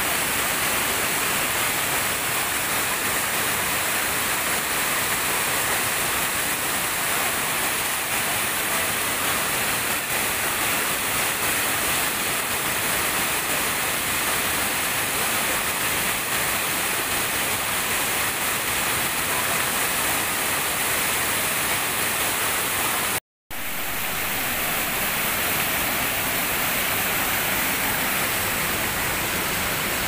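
Waterfall cascading over boulders: a steady, dense rush of falling water, cutting out for an instant about three quarters of the way through.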